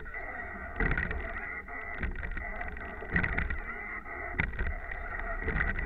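Rowing eight under way, heard from its bow: a short knock about every second and a bit with each stroke, over steady wind and water noise, with a thin steady high tone throughout.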